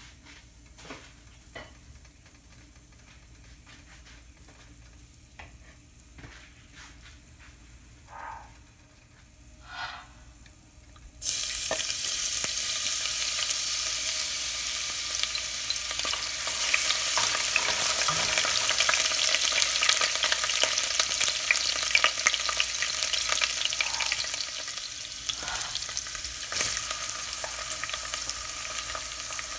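A few light clicks and taps of kitchen utensils. Then, about eleven seconds in, a sudden loud sizzle as food goes into hot cooking oil in a pan. The frying keeps sizzling and crackling while it is stirred, easing off a little near the end.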